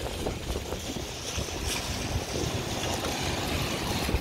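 Strong typhoon wind rumbling on the microphone, with a steady hiss of wind-driven rain.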